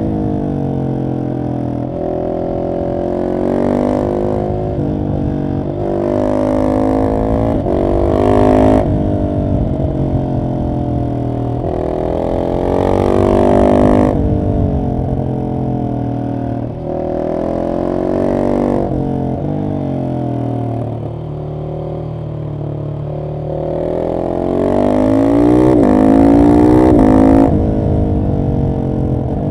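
Husqvarna 701 SM's single-cylinder engine through a decatted Arrow exhaust, accelerating hard in several runs. In each run the pitch climbs, drops briefly at the gear changes and then climbs again, and it falls off between the runs.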